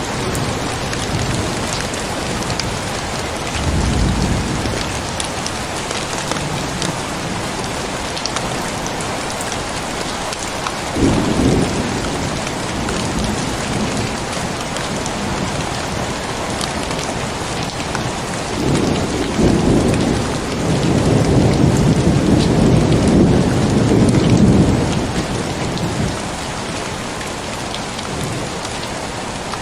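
Steady heavy rain with thunder: a short rumble about four seconds in, a sudden clap around eleven seconds, and a long rolling rumble from about nineteen to twenty-five seconds.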